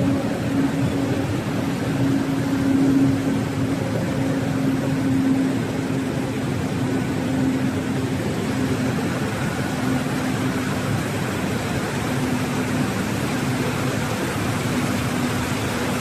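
Flat glass tempering furnace line running: a steady rush of machine and air noise with a low hum that wavers in strength.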